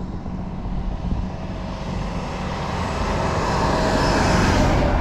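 A road vehicle passing close by. Its tyre and engine noise swells over a few seconds, is loudest near the end, then falls away sharply.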